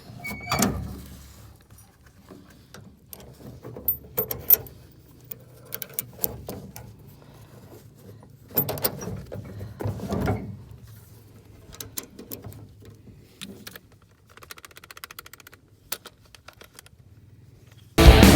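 Scattered metallic clinks and knocks of hand tools and steering parts being handled on a go-kart, with a brief run of quick ticks about fifteen seconds in. Loud rock music cuts in at the very end.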